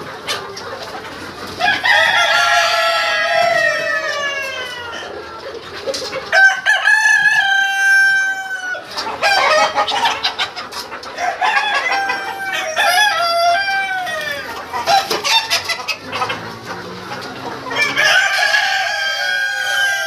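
A flock of Australorp chickens clucking and calling, with several long drawn-out calls of a rooster crowing.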